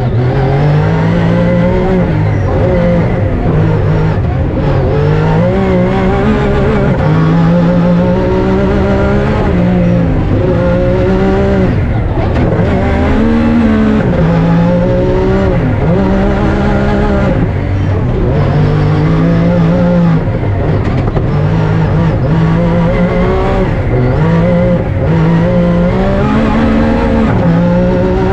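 Rally-raid car engine driven hard, its revs climbing and then dropping again and again as it shifts through the gears.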